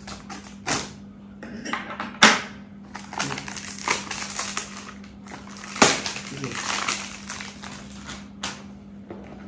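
Crinkling, crackling and snapping of a perfume box's packaging being picked at and torn open by hand, with irregular sharp clicks and two loud snaps, about two seconds in and near six seconds.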